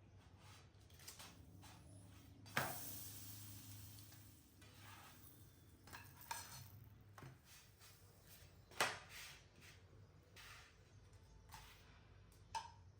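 Quiet kitchen handling of dishes and utensils: scattered clinks and knocks, the loudest about two and a half seconds in and again near nine seconds, with softer clatter between. A faint steady low hum runs underneath.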